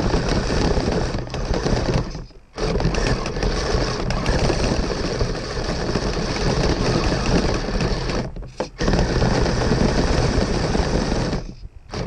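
Kyosho Blizzard SR RC snowcat driving through snow: its electric drive whirs and its tracks clatter rapidly and densely. It stops briefly about two seconds in, again after eight seconds, and near the end.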